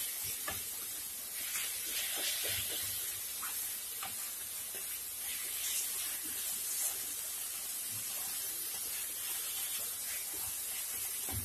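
Grated bottle gourd and sugar sizzling in a nonstick wok as a spatula stirs it: a steady hiss with scattered soft scrapes and taps of the spatula on the pan. The sugar is melting and drawing water out of the gourd, which is being stirred to cook it off.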